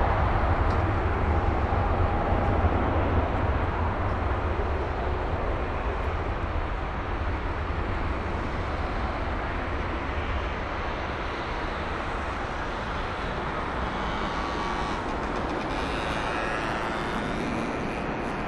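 Airbus A380's four Rolls-Royce Trent 900 turbofans at taxi power as the airliner taxis past: a steady deep rumble with jet hiss, easing off gradually over the first several seconds as it moves away.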